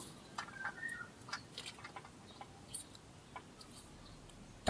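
Faint, scattered clicks and light taps from hands working a drive shaft into place, with a short faint chirp about a second in and a sharper click at the very end.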